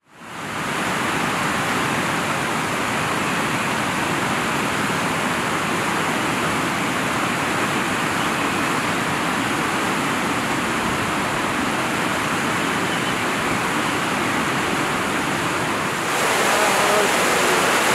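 River in flood, swollen with heavy rain, rushing and churning in a steady wash of water noise. It fades in at the start and gets a little louder near the end.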